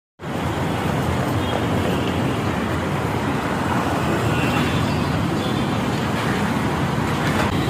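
Steady background din of a busy metro station, an even rumble and hiss with no distinct events.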